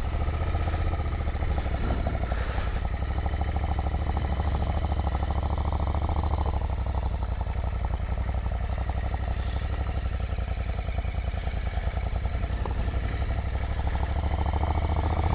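Royal Enfield Continental GT 650's parallel-twin engine idling steadily, then pulling away near the end.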